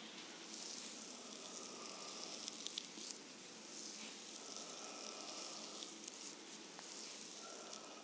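Massage therapist's hands sliding and pressing over bare skin during a deep-tissue back massage: soft swishing friction strokes that swell and fade in slow waves, with a few small clicks.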